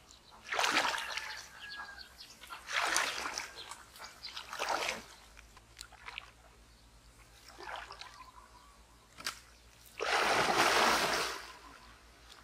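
Pond water splashing and sloshing in several separate bursts as a person wades through it and works in the shallows; the longest and loudest splash comes about ten seconds in.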